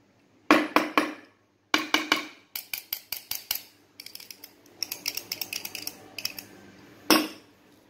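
Steel padlock tugged and shaken by hand while locked, its shackle and body clicking and rattling in quick runs of sharp metallic clicks, with one louder single clack near the end.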